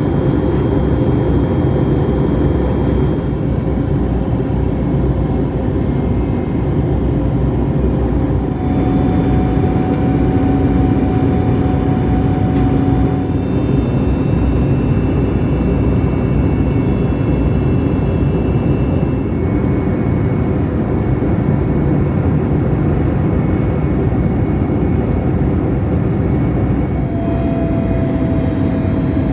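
Cabin noise of an Airbus A321neo airliner during the approach to landing: a steady, loud roar of its CFM LEAP-1A jet engines and the airflow. Faint engine tones shift in pitch a few times.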